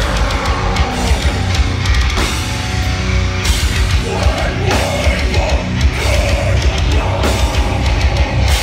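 Metalcore band playing live at full volume: distorted guitars over fast, dense drumming.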